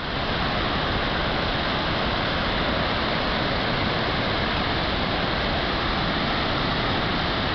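Large 72-metre waterfall heard up close: a loud, steady rush of falling water, its flow swollen by weeks of rain.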